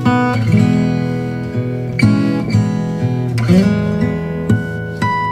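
Background music: acoustic guitar strumming chords, with a new chord struck every second or so.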